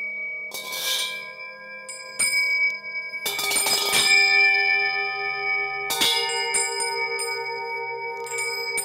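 Singing bowls and bells struck again and again, about five strikes, their long ringing tones overlapping. One tone wavers with a slow beat in the second half.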